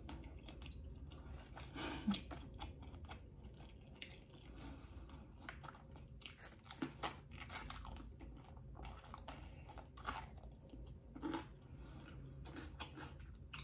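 Faint close-up chewing of a ranch-drenched chicken wing: soft wet mouth sounds with short crackly clicks scattered throughout, a few of them louder.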